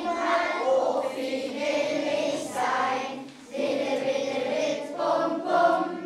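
A group of children singing together in unison from song sheets, in held-note phrases with a short break for breath about three and a half seconds in.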